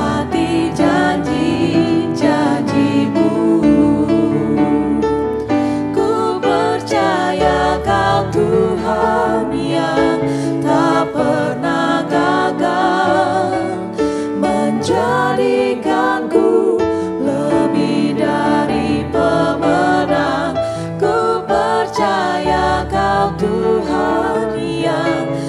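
Christian worship song: a voice singing a slow melody over instrumental accompaniment.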